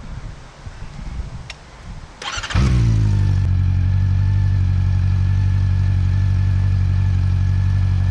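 A 2009 Honda CB400's inline-four engine is started: a brief burst of cranking about two and a half seconds in, then it catches and settles straight into a steady, even idle, a cold start for warming up.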